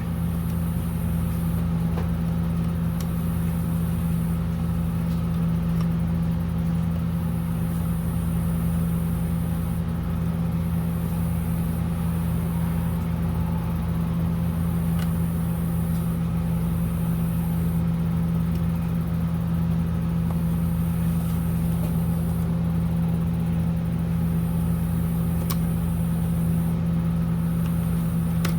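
A steady low machine hum that stays level throughout, with a few faint clicks over it.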